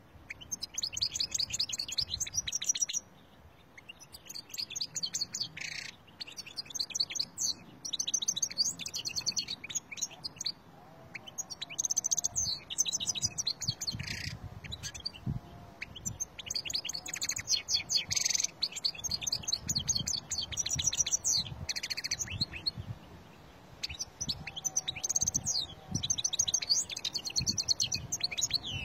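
European goldfinch singing: a fast, twittering song of quick high notes delivered in phrases of a few seconds, with short pauses between them.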